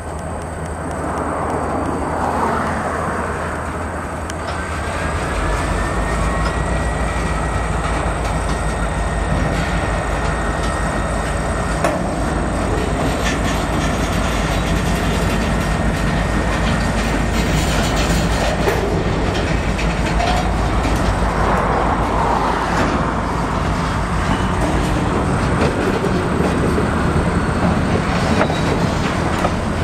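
Freight train of tank cars and covered hopper cars rolling past at low speed, steel wheels clicking over the rail joints under a steady rumble. A faint steady high whine runs from about five seconds in to about sixteen seconds.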